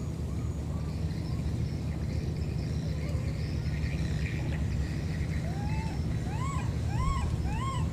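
Baby monkey crying: a run of short squealing calls, each rising and falling in pitch, about two a second, starting a little past halfway, over a steady low background rumble.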